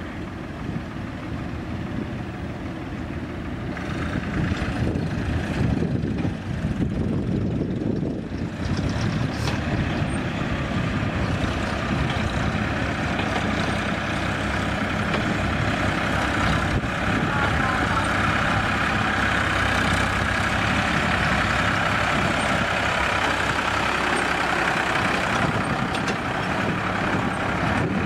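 Diesel tractor and backhoe engines running, with tractors pulling loaded trolleys close by. The engine noise grows louder about four seconds in and stays loud through the second half.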